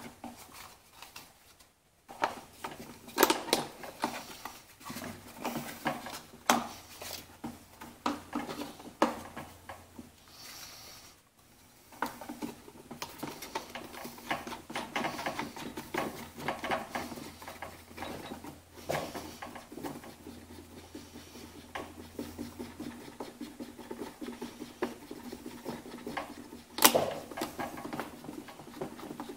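Plastic air filter cover of an Echo PB-500T backpack blower being fitted back over the new carburetor and fastened by hand: irregular clicks, taps and rubbing of plastic parts, with a sharper click near the end.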